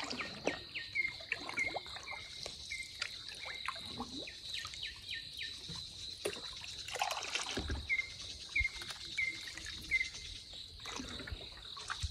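A steady high insect drone, with two runs of short, evenly repeated chirps and scattered trickling and splashing of water.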